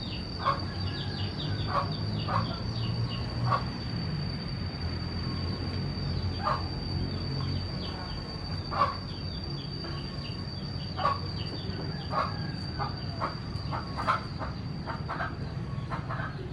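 Sharp, irregular taps of a mallet driving a carving chisel into wood, coming faster in the last few seconds, over a steady high-pitched insect drone.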